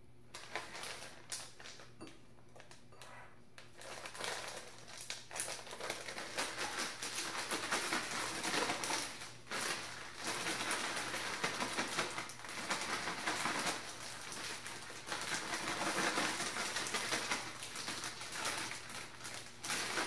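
Clear plastic bag crinkling and rustling as raw shrimp are shaken inside it to coat them in oat fiber. A few light rustles at first, then steady shaking from about four seconds in, pausing briefly twice.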